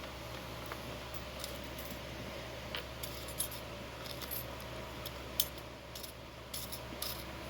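Small metal tools, lock shims, clinking and rattling as they are sorted through by hand, with light scattered clicks.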